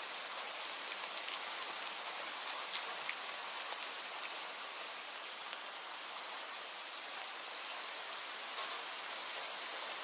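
Steady hiss of falling water, with scattered sharp drop-like ticks over it.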